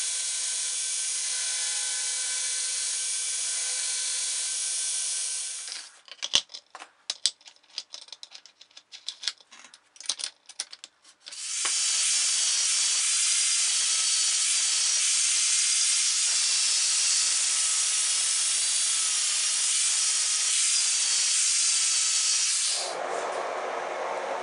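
Belt grinder grinding the steel tomahawk head, stopping about six seconds in. A scatter of sharp clicks and taps follows for about five seconds, then steady grinding again for about eleven seconds. Near the end the hot head goes into the quench tank with a lower, duller sizzle.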